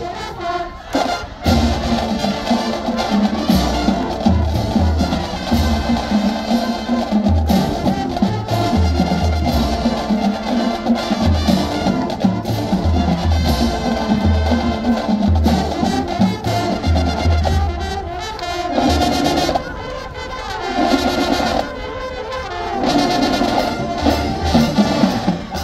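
High school marching band playing live on the field: brass (trumpets, trombones, sousaphones) carrying the tune over a steady beat from the bass drums and drumline.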